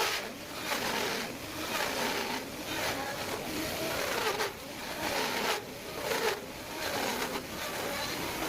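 Wood being grooved with a tool: repeated scraping strokes, about one a second, with short gaps between them.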